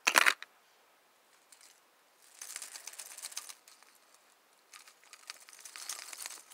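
A hard plastic crankbait is dropped into a clear plastic tackle-box compartment with one sharp clack, followed by two spells of faint crinkly rustling.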